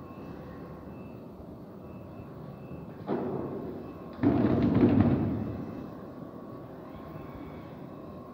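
Composite block feeder robot running with a steady mechanical hum, broken by two sudden bursts of noise about three and four seconds in; the second is louder and dies away over a second or so.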